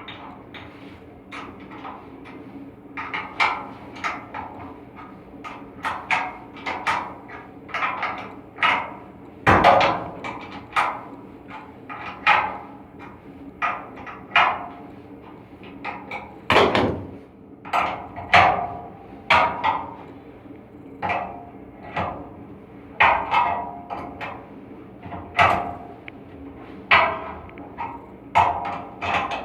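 Repeated hammer-like strikes on metal, roughly one a second and uneven in strength, several with a short ring, over a steady low mechanical hum.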